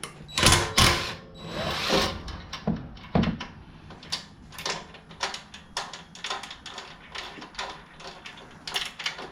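Hand-tool work on metal parts: a few louder knocks and a scrape in the first three seconds, then irregular light clicks and clinks of bolts and tools being handled.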